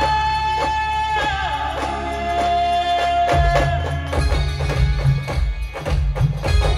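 Brass band playing a film-style tune: a lead melody holds long notes with slides between them over loud, heavy drum beats and a steady percussion rhythm.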